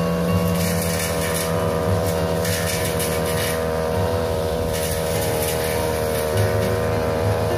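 Backpack brush cutter engine running steadily while its blade trims an ixora hedge, with short rustling swishes as the blade cuts through the leaves every second or so.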